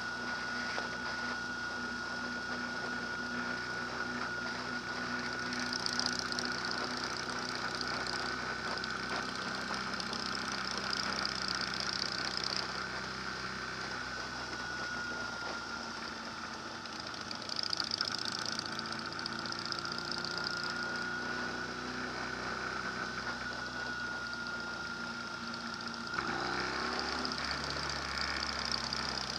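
An engine running steadily, with a high whine held through it; its sound shifts a few seconds before the end.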